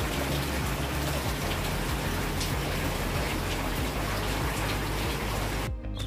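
Steady rain falling in a dense, even hiss. It cuts off suddenly near the end.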